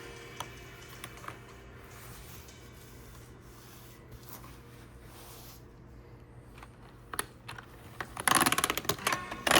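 Quiet handling noise over a low steady hum, with a few small clicks, then a loud rapid rattling clatter of small hard objects starting about eight seconds in.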